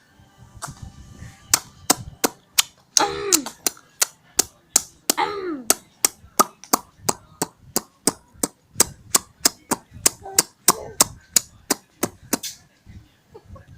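A steady run of sharp clicks, about three a second, starting about a second and a half in and stopping shortly before the end. A small child's voice cuts in twice, around three and five seconds in, with short sounds that fall in pitch.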